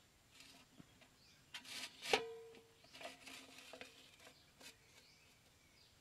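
Hands handling an empty tin milk can and bamboo stakes on dirt ground, with light rustling and scraping, and one sharp knock about two seconds in that sets the can ringing briefly.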